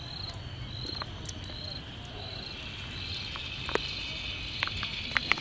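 Cooking oil poured in a stream from a pouch into an empty aluminium karahi, a soft pour, under crickets chirping in short repeated trills. A few faint clicks come near the end.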